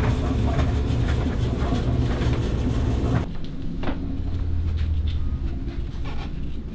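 Home laundry machine running with a steady low rumble and scattered knocks, cut off abruptly about three seconds in. After that comes quieter room sound with a low hum and a few soft knocks.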